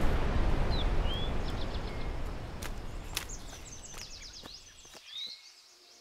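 Rushing water of a tall waterfall, a steady hiss that fades away over about five seconds, while small birds chirp and give a high trill over it.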